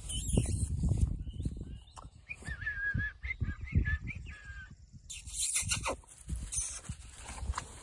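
Six-week-old puppies at play: irregular scuffling and bumping, with a run of high, wavering whines about two to four seconds in.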